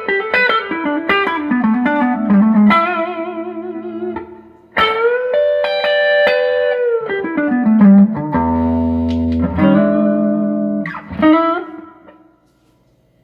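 Electric guitar played through a Crafts Audio "Opt Comp" compressor pedal: single-note phrases with string bends and vibrato, then a strummed chord about two-thirds of the way in. The last notes ring out and fade away shortly before the end.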